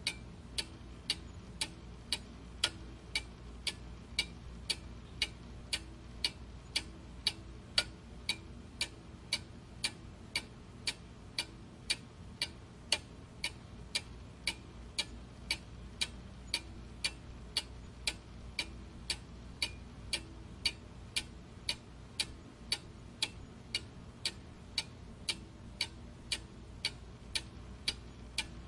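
A clock ticking steadily, about two ticks a second, over a faint low hum.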